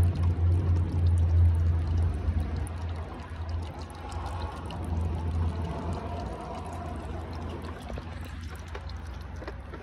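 Engine oil pouring out of a loosened oil filter on a Carrier 7300 reefer unit's diesel engine into a plastic jug held beneath it, over a low rumble that is loudest in the first half and fades away.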